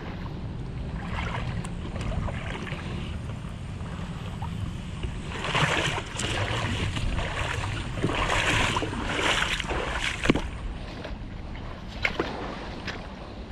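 Water sloshing and splashing in a few swells over a steady low rumble of wind on the microphone, with a couple of sharp clicks near the end.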